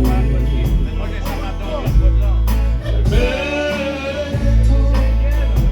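A live band playing a song between sung lines: guitar over long-held deep bass notes, with regular drum hits. A wavering melodic line stands out about three seconds in.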